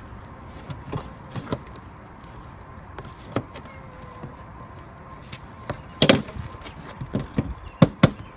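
Irregular knocks and clicks of utensils and containers being handled on a table during slime mixing. A cluster of louder ones comes about six seconds in, and a few more sharp ones near the end.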